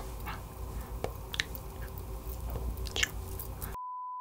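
Close-miked mouth noises: scattered soft clicks and smacks over a low hum. Near the end the sound cuts to a steady 1 kHz test-pattern beep, about half a second long.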